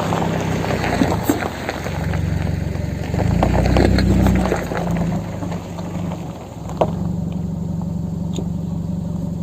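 Car engine running with a steady low hum that swells louder for a moment near the middle, with a few light clicks.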